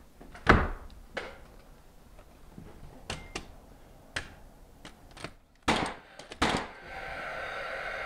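Framing nailer shots and wooden knocks as a 2x4 stud is set against the old door framing and nailed to it: about seven sharp hits at uneven intervals, the loudest about half a second in.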